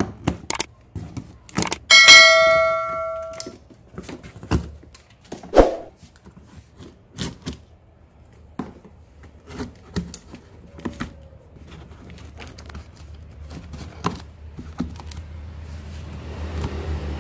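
Scissors cutting the plastic strapping bands on a cardboard carton, with a string of sharp clicks, snaps and handling knocks. About two seconds in, a bell-like ding rings for about a second and a half and is the loudest sound.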